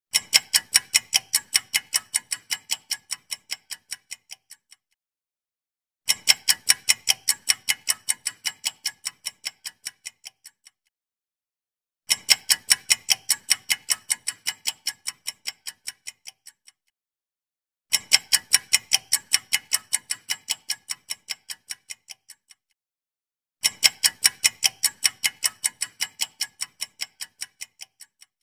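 Countdown-timer ticking sound effect: rapid clock-like ticks in five runs of about four and a half seconds, each fading away, with a second or so of silence between runs.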